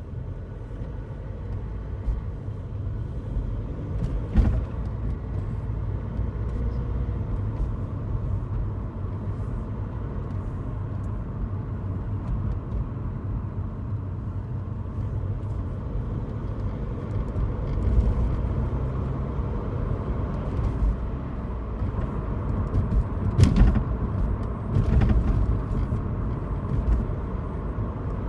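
Car driving on the road with a steady low rumble of road and engine noise, broken by a few short rattles from the rear of the car: one about four seconds in and a couple more near the end. The cause of the rattle is unknown, possibly the boot or the sunroof.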